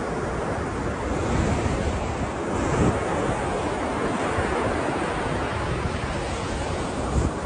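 Ocean waves washing in a steady surf, swelling slightly now and then, with wind noise on the microphone.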